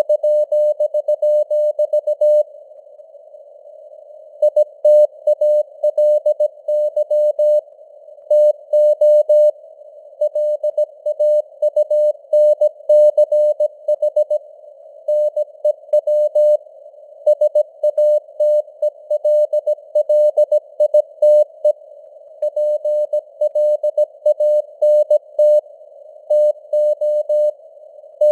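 Morse code sent at 17 words per minute as a single steady mid-pitched tone, keyed on and off in dots and dashes, with short pauses between words. A narrow band of simulated radio hiss sits around the tone throughout.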